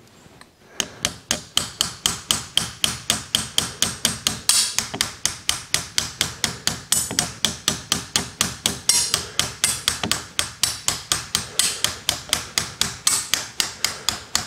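Rapid, steady hammer taps, about four to five a second, starting about a second in, driving a putty knife under a glued-down chrome way strip on a surface grinder table. The bonded strip is delaminating from the cast iron in sections.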